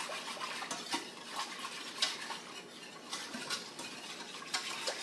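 A spoon stirring barbecue sauce in a pot, scraping and clicking against the sides at irregular intervals as a flour slurry is mixed in to thicken it.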